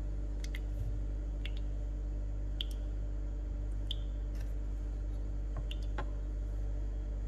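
Last drips of espresso falling from a Nespresso Lattissima Touch's coffee spout into a glass cup: a few faint plinks, about a second apart, over a steady low hum.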